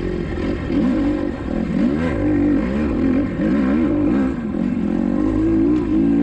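Kawasaki KX250XC four-stroke dirt bike engine revving up and down under hard riding, its pitch rising and falling again and again as the throttle is worked through the gears.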